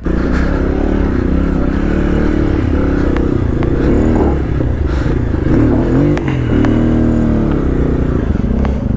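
Off-road motorcycle engine running in a low gear down a steep rocky trail, its pitch rising and falling as the throttle is opened and closed. Occasional knocks come from the tyres and chassis clattering over loose stones.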